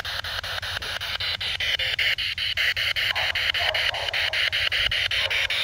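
SB7 spirit box sweeping through radio frequencies in reverse: a steady hiss of static chopped by about ten clicks a second, with brief snatches of radio sound.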